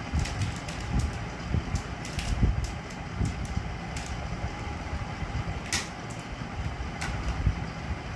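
Pyraminx puzzle being turned quickly by hand during a timed speed solve: a quick run of small plastic clicks and clacks, thinning out after about three seconds, with a couple of sharper single clicks near the end. A steady low rumble runs underneath.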